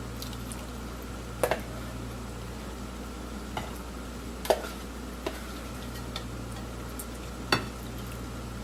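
Kitchen handling sounds: about five light knocks and clicks of utensils or cookware, a second or two apart, over a steady low hum.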